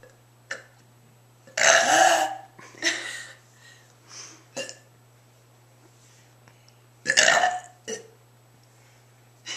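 A girl burping deliberately: two big, loud burps about one and a half and seven seconds in, with smaller ones in between.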